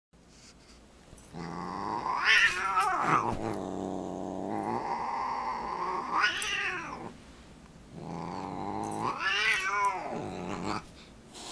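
Siamese cat growling at a dog: three long, drawn-out growls, each swelling into a yowl that rises and falls in pitch, a threat warning.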